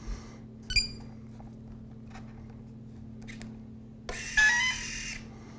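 Electric retract unit on a model jet's nose gear whirring for about a second as its small motor drives the gear down to the extended position. A short high chirp comes about three seconds earlier, and a steady low hum runs underneath.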